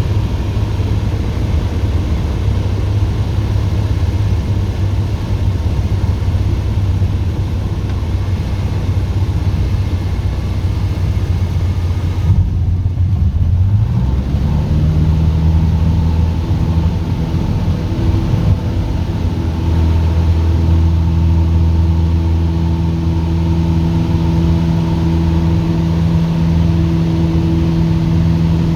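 Light aircraft's piston engine running steadily. About halfway through its pitch glides up, then it holds a steady, clearer note.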